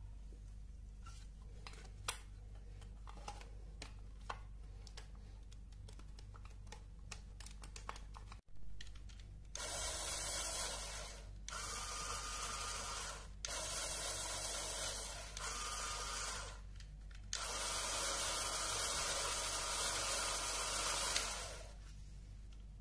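LEGO Technic electric motors spinning a plastic gear train and drum on a test rig, whirring steadily in several runs of one to four seconds with short gaps between, the last run the longest. Before the runs, light clicks of plastic parts being handled.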